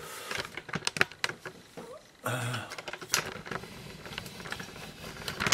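Irregular clicks and knocks of the camera and easel being handled while the shot is reframed, with a brief low hum about two seconds in and a sharper knock at the very end.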